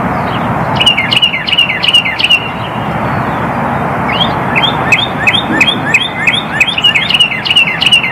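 Male northern cardinal singing: a short run of quickly repeated down-slurred whistles about a second in, then a longer run of the same notes from about four seconds in.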